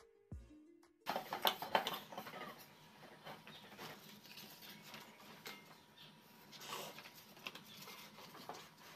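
Background music ends about a second in. After that come soft, irregular clicks, taps and scraping as things are handled.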